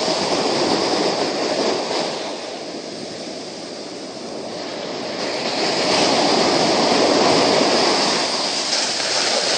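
Ocean surf washing up the beach, a steady rush that swells and eases with the waves, loudest a second in and again in the latter half.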